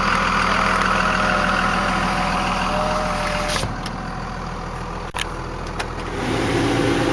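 A 1998 Dodge Ram 2500's 5.9-litre inline-six Cummins turbo diesel idling steadily. About halfway through it becomes quieter and more muffled, a sharp click follows, and near the end a blower fan starts to hum.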